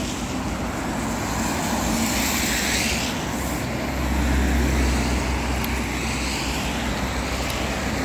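Road traffic on a wet road: a steady hiss of tyres, with a vehicle swelling past about two to three seconds in and a deeper low rumble about four to five seconds in.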